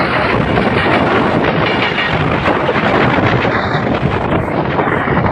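Train running along the line, heard from the front of the locomotive: a loud, steady rumble of wheels on rail mixed with rushing air.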